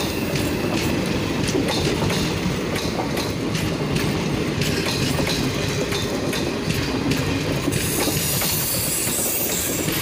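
Superfast express passenger coaches running past at speed on the near track: a steady rumble with wheels clattering rapidly over the rail joints.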